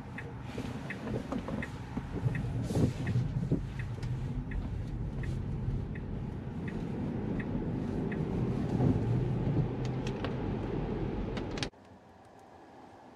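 Inside a Tesla's cabin on a wet road: the turn-signal indicator ticking evenly, about one and a half ticks a second, over the rumble of tyres and road as the car pulls away and turns. Near the end the sound drops suddenly to a much quieter hiss.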